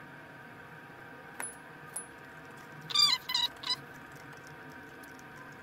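Two light metallic clinks of a wrench on the puller screws, then three short high squeaks in quick succession as a puller screw is turned against the gearbox shaft sprocket, over a steady background hum.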